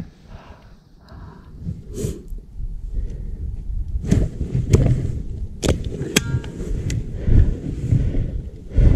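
Handling noise close to the microphone: rustling and rumble with scattered sharp clicks and knocks, the strongest about two, four, five and a half and six seconds in.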